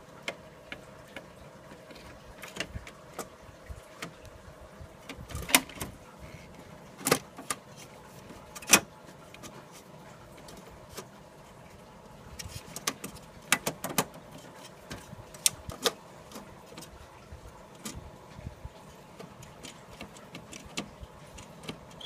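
Perforated sheet-metal cover panel of a computer chassis being handled and fitted back into place by hand: scattered metallic clicks and knocks, a few of them sharp and loud.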